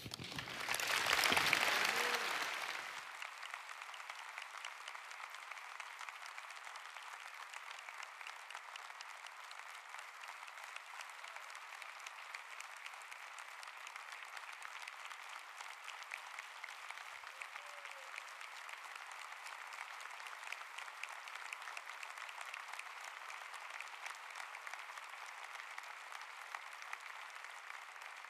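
Congregation applauding, louder for the first few seconds, then long, steady clapping.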